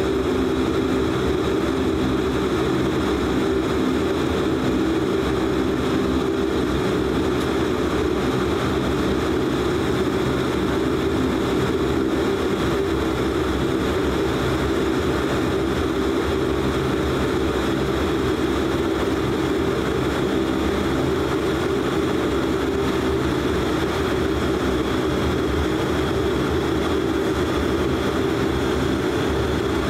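De Havilland Canada Dash 8 Q400's Pratt & Whitney PW150A turboprop engines and propellers running steadily at taxi power, heard inside the cabin as an even drone with a steady hum.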